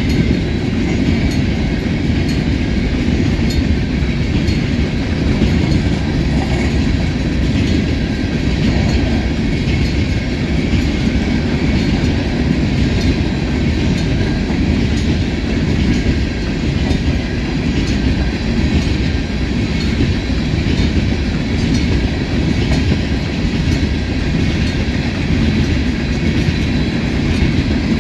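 Cars of a long empty ore train rolling past on the track: a steady rumble with faint repeated wheel clicks.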